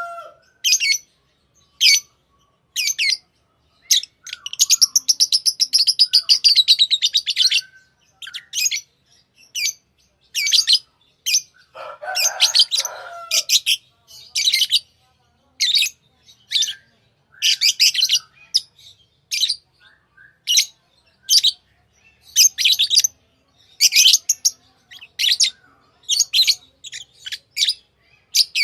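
Pet lovebirds chirping: sharp, high chirps about once a second, with a rapid chattering run a few seconds in and a lower, rougher call around the middle.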